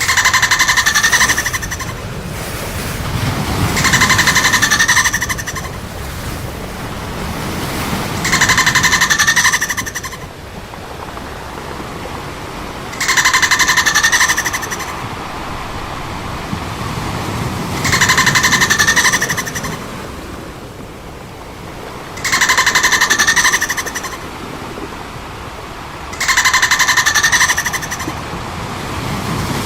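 Dolphin calls: a rapidly pulsed, buzzy call about a second and a half long, repeated seven times at even spacing, roughly every four seconds, over a low rushing background.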